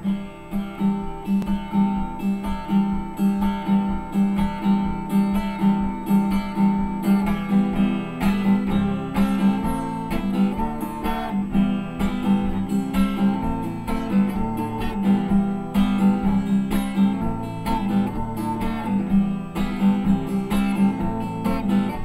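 Acoustic guitar strummed in a steady rhythm, playing a song's instrumental introduction before the singing begins.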